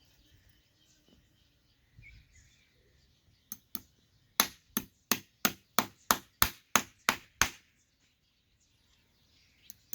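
A farrier's hammer strikes metal in a run of about a dozen sharp blows, roughly three a second. The blows start a few seconds in and stop after about four seconds.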